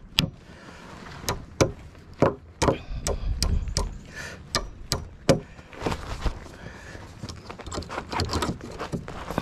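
A series of sharp knocks and clicks at irregular spacing, with a low rumble swelling briefly about three to four seconds in.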